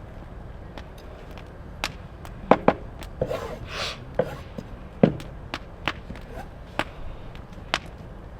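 Irregular sharp clicks and knocks, the loudest a pair about two and a half seconds in and one about five seconds in, with a brief hissing rush between them.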